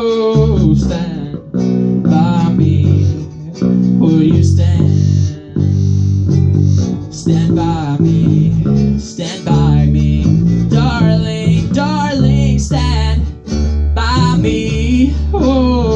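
A band playing a song live, with guitars and bass guitar under a singing voice.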